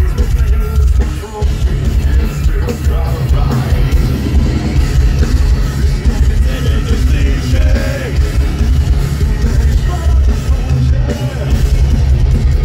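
Heavy metal band playing live through a concert PA: distorted electric guitars, bass guitar and drums, with a singer's vocals at times. Loud and steady, with a heavy, booming low end.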